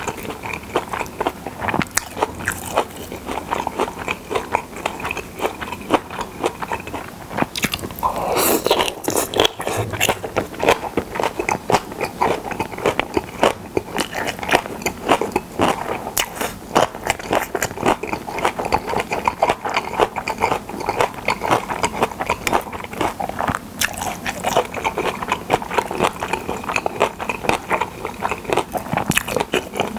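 Close-miked chewing of pressed boiled pork with seasoned dried radish strips: steady chewing and biting with many small crunches and crackles, and a louder stretch about eight seconds in.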